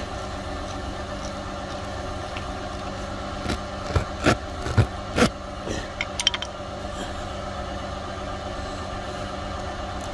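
Engine idling steadily. Between about four and seven seconds in there is a short run of sharp clicks, knocks and scrapes from tire-plug tools being forced into the hole in the tire.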